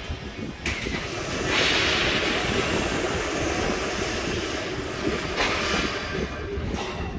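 Machinery running: a steady rumble with a strong hiss that swells about a second and a half in and eases off near the end.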